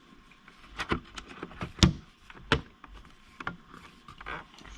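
Mac Mini G4 case being handled and lined up on the computer for reassembly: several separate light knocks and clicks, the loudest about two seconds in.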